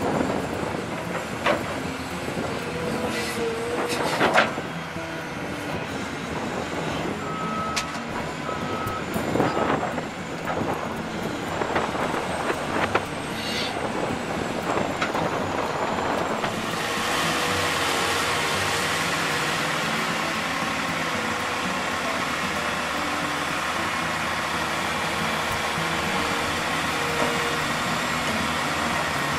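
Diesel engines of a large Caterpillar tracked excavator and a Caterpillar 740 articulated dump truck running as the excavator loads dirt into the truck's bed, with clanks and knocks from the bucket and steel. The loudest knock comes about four seconds in. A steadier, fuller engine noise sets in a bit past halfway.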